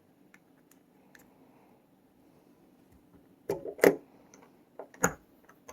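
Small metal clicks and taps from padlock parts being handled during reassembly: faint ticks at first, then a quick cluster of sharper clicks and one more sharp click near the end.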